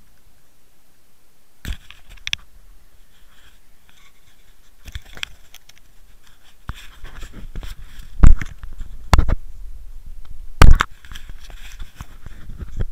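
Handling noise on a Water Wolf HD fishing camera's own microphone: scattered knocks and scrapes as it is picked up and turned over, the loudest a little past eight seconds in and again about ten and a half seconds in.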